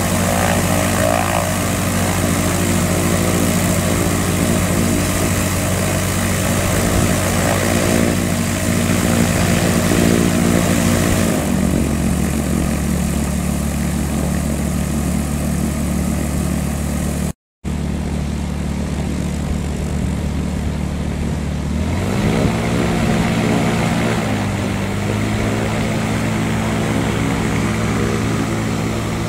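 CZAW SportCruiser's piston engine and propeller running at taxi power on the ground, dropping in pitch about a third of the way in as it is throttled back. After a brief cut past halfway, another light aircraft's propeller engine rises in pitch and settles into a steady taxi run.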